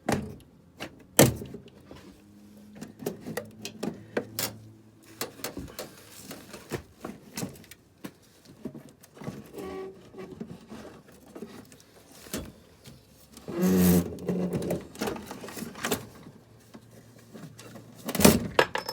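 Irregular metal clicks, knocks and scrapes as a gas furnace's inducer motor assembly is worked loose and handled, with a louder rough scraping about 14 s in and a sharp clatter near the end.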